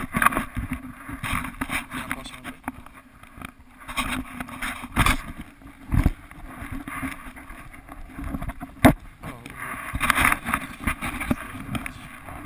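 A 125cc dirt-bike engine running steadily at a low idle, with a few sharp knocks on the helmet camera about five, six and nine seconds in.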